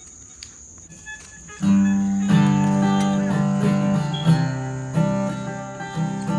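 After a quiet second and a half, acoustic guitar music starts: strummed chords over a steady low bass line, the intro to a song.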